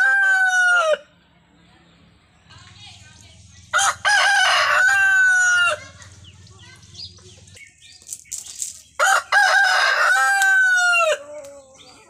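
Roosters crowing: the end of one crow, then two full crows about five seconds apart. Each is a long call that falls in pitch at its end.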